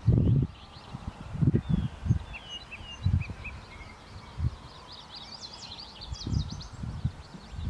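Songbirds chirping and singing, with short quick calls scattered through and a busier burst of song near the end, over irregular gusts of wind rumbling on the microphone.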